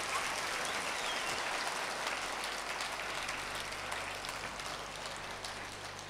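Audience applauding: a dense patter of many hands clapping that swells at the start and slowly dies away near the end.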